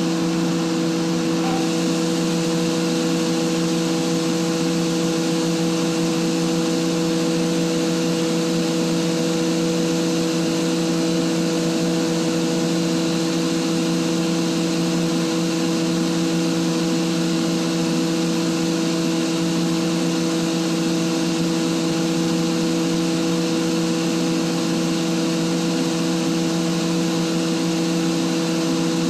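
An Atlas Copco GA160 oil-injected rotary screw air compressor runs with a steady hum made of several fixed tones. It is in its unloaded state, with outlet pressure falling from about 8 to 7 bar.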